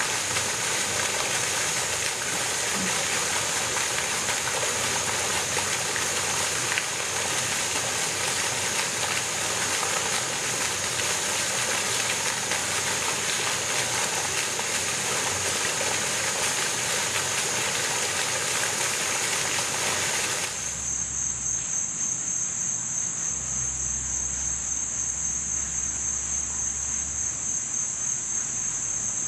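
Steady rush of flowing water with insects trilling high over it. About two-thirds of the way through it cuts suddenly to a steady, pulsing insect chorus with a faint low rumble beneath.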